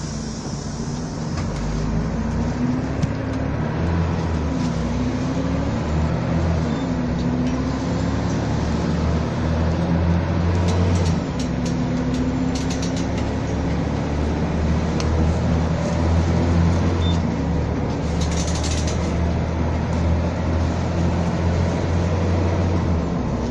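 Volvo B12M bus's 12-litre six-cylinder diesel engine running steadily, its pitch rising and falling a few times as engine speed changes, then holding even.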